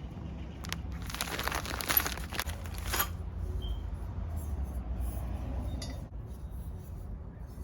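Packaging rustling and small metal hardware clinking as a skid plate mounting kit is handled. The handling is loudest for about two seconds, starting about a second in, then turns to a few faint ticks over a steady low hum.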